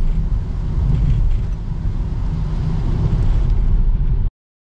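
Road noise inside the cab of a Nissan NV200 van driving on a wet road: a steady low rumble with a haze of tyre hiss, cutting off suddenly about four seconds in.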